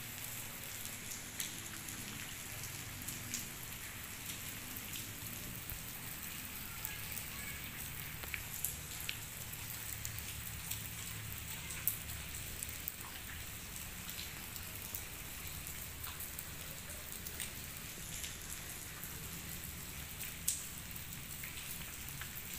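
Steady rain falling, with scattered sharp drips ticking at irregular moments.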